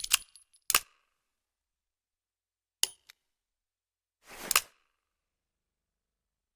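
Smith & Wesson 686 revolver being handled: a few sharp metallic clicks of the action, then a short sliding sound that ends in a click.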